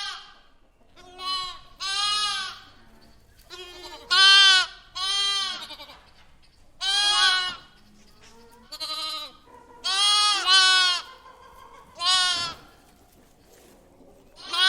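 A lamb bleating again and again: about a dozen high, wavering bleats, each about half a second long, at uneven gaps, some coming in quick pairs.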